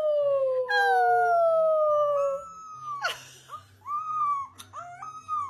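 Puppy howling: long, slowly falling howls, two of them overlapping at first, followed by several shorter rising-and-falling howl notes.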